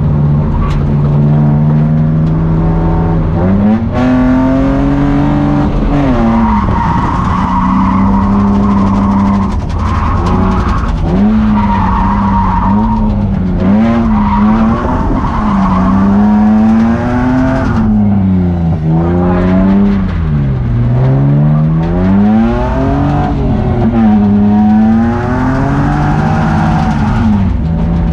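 BMW E36 drift car heard from inside the cabin, its engine revving up and down again and again through a drift run, with the tyres squealing in stretches.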